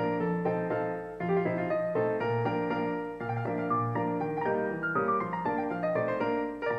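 Piano music playing, a steady run of single notes and chords.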